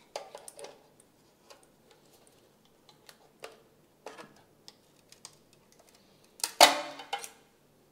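Flathead screwdriver prying at a shower valve's handle and plastic adapter: scattered small clicks and scrapes of metal on metal and plastic, then one loud snap with a brief rattle about six and a half seconds in as the snap-in adapter piece comes free.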